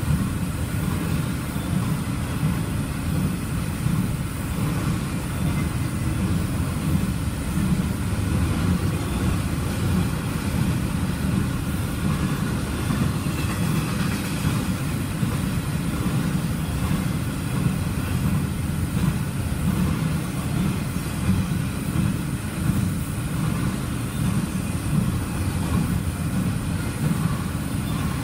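Double-stack intermodal container train rolling past: a steady, continuous low rumble of steel wheels on rail from the passing well cars.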